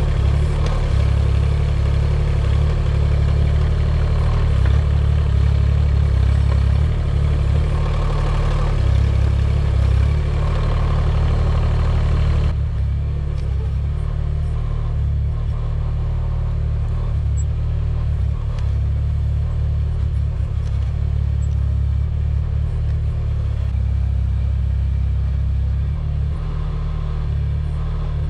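Mini excavator's diesel engine running steadily with hydraulic working noise and some clatter as it digs. About halfway through, the higher-pitched working noise drops away abruptly, leaving the engine's low running.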